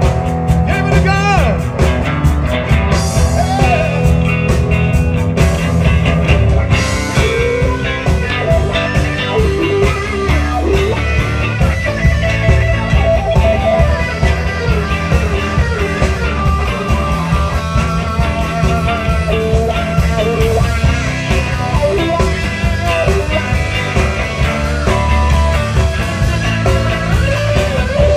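Live blues-rock band playing an instrumental break: an electric guitar plays a lead line with bent, sliding notes over steady bass and drums.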